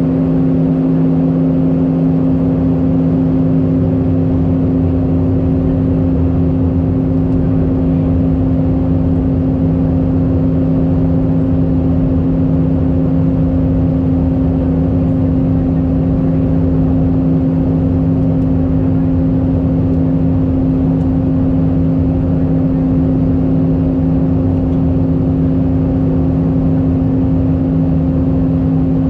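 Steady in-flight cabin noise of an Airbus A319, heard beside the wing: an even drone of engines and rushing air, with two strong, steady low hums and fainter higher ones.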